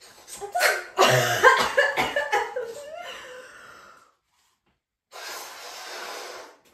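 A woman coughs and laughs for about three seconds. After a short pause she blows one long, steady breath into a latex balloon to inflate it.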